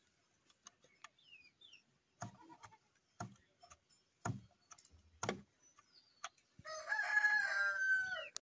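A rooster crowing once, a loud call of about a second and a half that falls away at its end. Before it come a few soft taps about a second apart.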